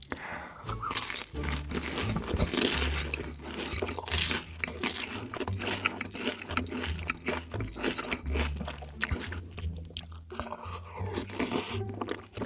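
Close-up crunchy chewing and biting of crisp food, many irregular sharp crunches, with a low bass tone underneath that changes pitch every second or so.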